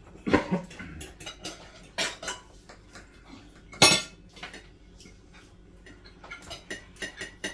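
Forks clinking and scraping on ceramic plates and bowls during a meal, in scattered sharp clicks, the loudest about four seconds in.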